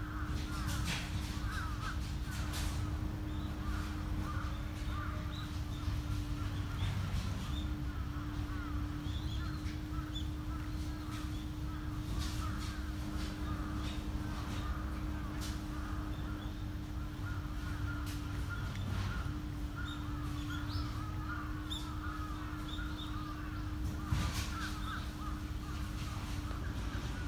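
Birds calling over and over in the background, over a steady low hum and rumble. A few sharp clicks come from a cat licking food from a small plastic bowl.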